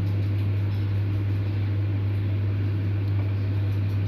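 A steady low hum over a constant rushing noise, unchanging and with no knocks or breaks.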